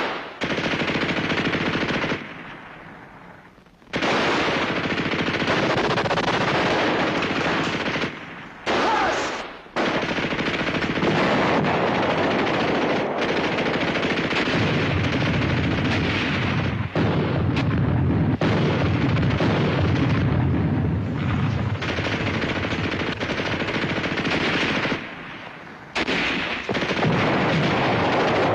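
Sustained machine-gun and rifle fire of a battle, broken by a few brief lulls. A deeper rumble joins the gunfire through the middle stretch.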